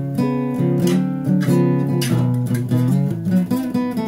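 Acoustic guitar playing a blues accompaniment: strummed chords with moving bass notes underneath.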